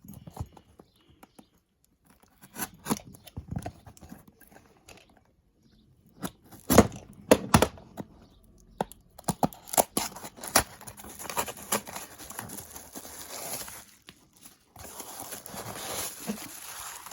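A posted package being torn open and unwrapped by hand: irregular rips of paper and tape with rustling and crinkling of packaging and bubble wrap, plus the odd knock. The busiest ripping comes in the middle, with steadier rustling near the end.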